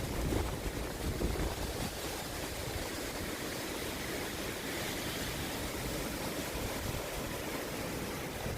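Hurricane wind blowing with a steady rushing noise, with low rumbling gusts buffeting the microphone near the start.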